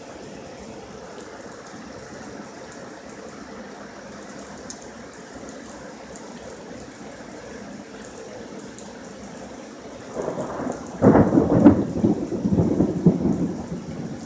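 A thunderclap over a steady hiss of rain. The rumble builds about ten seconds in, breaks into a loud crack a second later, and rolls on for about three seconds before fading.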